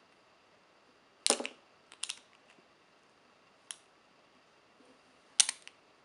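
Chain-linked steel handcuffs clinking as the cuffed wrists move: sharp metal clicks and short rattles of chain and cuffs. The loudest come about a second in and near the end, with a few single clicks in between.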